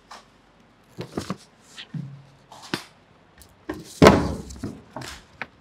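Scattered knocks and clatters of objects handled on a table, with one loud, heavy thump about four seconds in.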